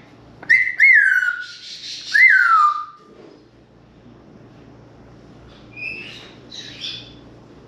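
African grey parrot whistling: three loud whistles in the first three seconds, each sliding up and then down, with a harsh rasping call mixed in about two seconds in. Softer short chirps follow near the end.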